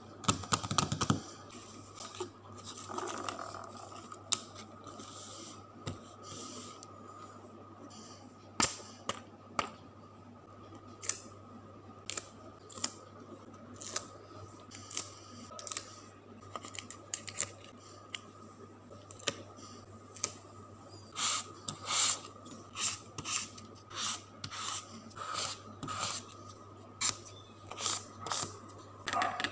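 Scissors snipping and paper being handled while making a journal page: a string of short, sharp clicks and rustles over a faint steady hum, coming thicker and faster in the last third.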